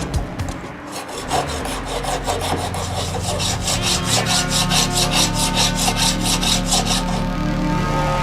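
Rapid, rhythmic scraping strokes of a tool cutting or rasping steel, about four or five a second, over a steady low hum.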